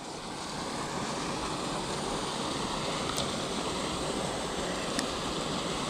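Small creek's water running steadily, with two faint clicks about three and five seconds in.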